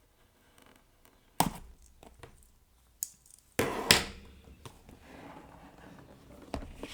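Keycap set packaging being handled and opened: a few sharp knocks and taps, the loudest a close pair about four seconds in, with light rustling between them.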